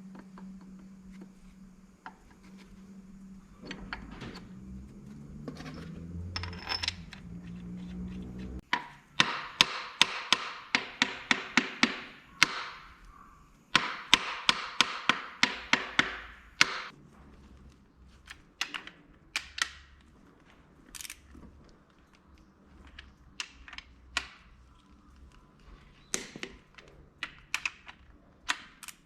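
Hand tools working on metal engine parts: two quick runs of sharp metallic clicks, about three a second, then scattered single clicks. A steady hum runs in the first several seconds and stops.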